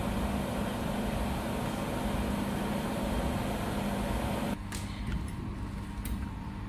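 Steady hum of a running laser welding machine. About four and a half seconds in it drops suddenly to a quieter hum with a few faint clicks.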